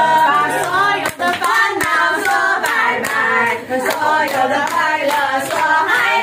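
A group of people singing a Mandarin birthday song together, with hand-clapping in time.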